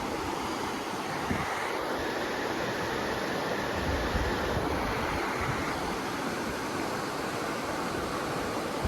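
Steady rush of fast-flowing river water, an even, unbroken hiss with a low rumble underneath.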